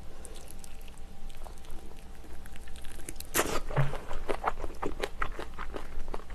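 Close-up mouth sounds of chewing monkfish from a spicy seafood stew: faint wet clicks at first, a short sucking slurp about three seconds in, then quick wet smacking chews.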